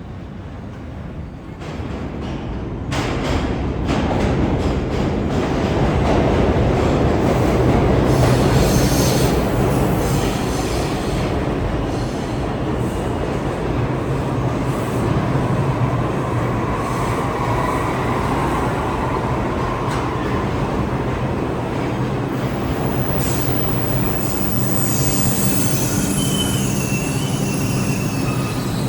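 R62A subway train running on the rails, growing louder about three seconds in, then a steady motor hum over wheel and rail noise. Brief metallic wheel squeals come in the middle and near the end.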